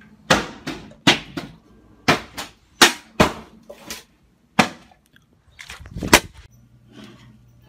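A quick run of about a dozen sharp bangs or pops, spaced unevenly, with short quiet gaps between them.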